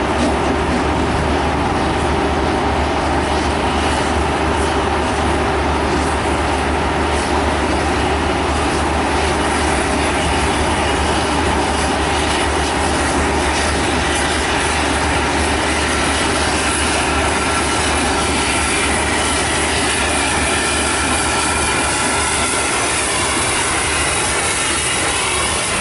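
Dublin and South Eastern Railway 2-6-0 steam locomotive No. 461 and its coaches rolling slowly into a station: a steady rumble of wheels on the rails, with a faint high wheel squeal in the second half.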